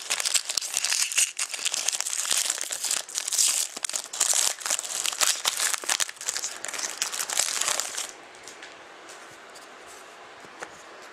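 Foil wrapper of a trading card pack being torn open and crumpled by hand: a dense, crackly crinkling that stops about eight seconds in.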